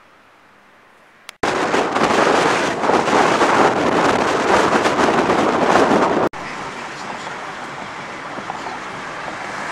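Wind rushing and buffeting the microphone through an open car window while driving, mixed with road noise. It starts suddenly about a second and a half in, loud, and drops abruptly to a steadier, quieter rush about six seconds in.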